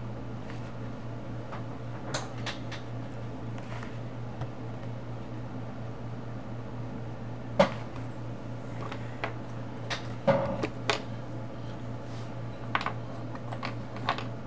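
Coloring tools being picked up, handled and set down: scattered light clicks and knocks, the sharpest about seven and a half seconds in and a cluster a few seconds later, over a steady low hum.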